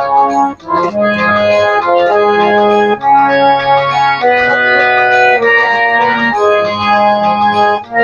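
Harmonium playing a melodic interlude: steady reed notes, several at once, moving to a new pitch every half second to a second, with short breaks about half a second in and again near the end.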